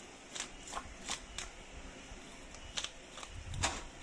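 Knife blade scraping the scales off a large tilapia in short rasping strokes, about six in all, with a heavier knock about three and a half seconds in.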